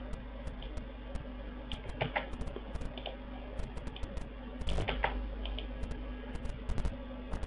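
Computer keyboard keys and mouse buttons clicking: scattered, irregular taps, with quick clusters about two and five seconds in, over a low steady hum.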